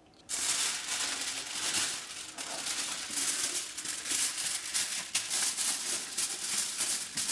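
Aluminium foil being pulled off a roll and crinkled as it is folded over a baking tray: a continuous crackly rustle full of small sharp crackles, starting about a third of a second in.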